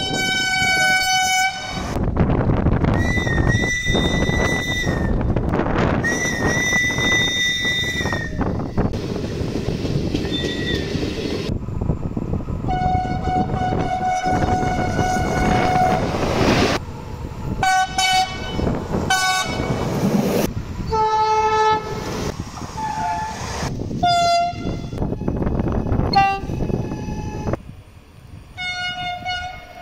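Italian passenger trains sounding their horns as they approach and run through stations. There are several horn blasts of different pitches: long ones in the first half, then a quick string of short toots after the middle and more short blasts near the end, all over the steady rumble of the trains on the track.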